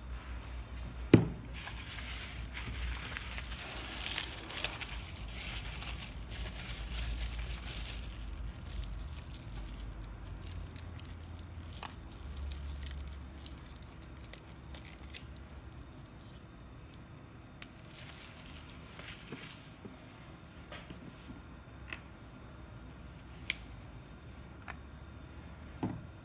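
Plastic bubble-wrap packaging crinkling and rustling as a small replacement IC is unwrapped. A sharp knock comes about a second in, and the crinkling gives way to softer handling noise and scattered light clicks after about nine seconds.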